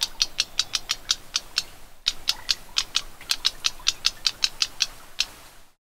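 Black-browed reed warbler calling: a rapid series of short, sharp clicking notes, about six a second, in two runs with a brief break about two seconds in.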